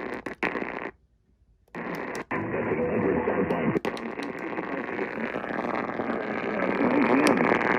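Radio static: a short burst of hiss, a gap of about a second, then steady hiss with faint warbling under it that slowly grows louder.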